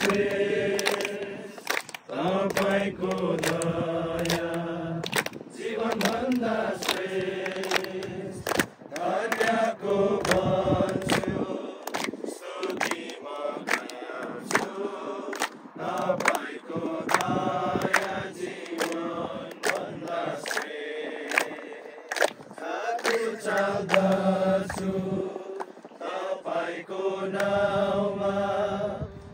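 A group of men singing a worship song together, clapping their hands along to the beat.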